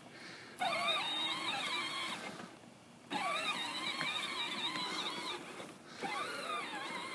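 Battery-powered John Deere ride-on toy tractor's electric drive motors and gearbox whining in three runs of about two seconds, each starting abruptly, the pitch wavering as the tractor drives over bumpy grass.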